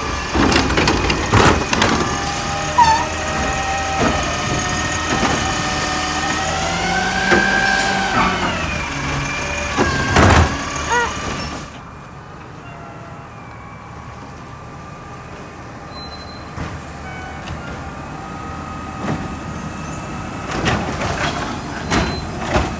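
Garbage truck working: engine running with a pitched whine that rises and falls, broken by sharp clanks and knocks. About 12 seconds in it drops abruptly to a quieter running sound, with more knocks near the end.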